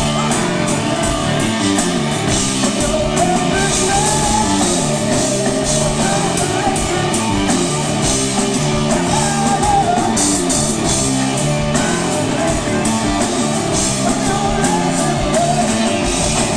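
A rock band playing live, with distorted electric guitar, bass, a drum kit with steady cymbal hits, and a male lead singer's wavering vocal line over the top.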